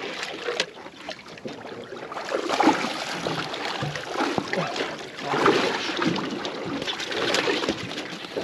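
Water splashing and slapping around a small aluminium boat, broken by frequent short knocks and rattles.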